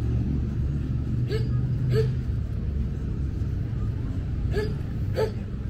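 Steady low rumble of road traffic, with a few short sharp taps about every half second to three seconds.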